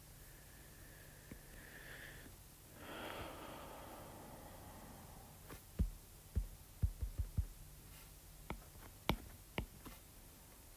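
A faint breath about three seconds in, then a run of irregular light taps and clicks of a stylus on a pen tablet while writing, about a dozen over the last five seconds.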